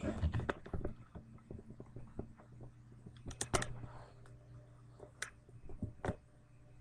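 Scattered light clicks and knocks, with a louder pair about three and a half seconds in, over a steady low hum.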